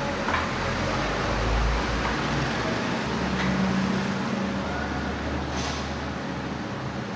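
Steady low rumble of a running motor-vehicle engine, heard against road-traffic noise, with a few faint clicks.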